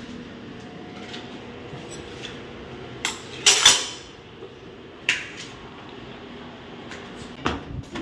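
Steel kitchen utensils clinking and clattering: a handful of separate knocks, the loudest a short clatter about halfway through.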